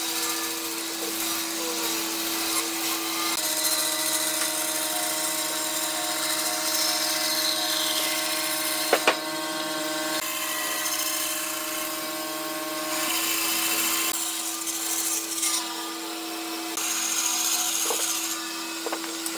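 Bandsaw running with a steady hum while its blade cuts through thick wooden stock, the sawing hiss changing as the wood is fed; two sharp clicks about halfway through.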